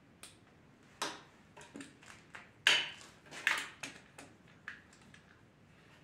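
Irregular light clicks and clatter of hands handling the wiring and plastic connectors inside a motorcycle's headlight shell, about a dozen small knocks, the loudest a little before the middle.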